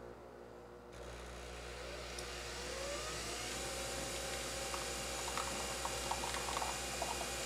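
Single-serve coffee machine brewing: its pump starts up with a rising whine and settles into a steady hum, and from about halfway in, coffee streams into the steel-lined mug with light spattering ticks.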